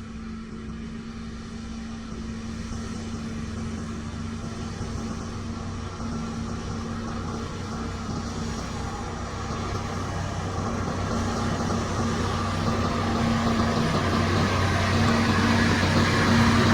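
Diesel engine of a motor grader running steadily, its low hum growing gradually louder as the machine comes closer.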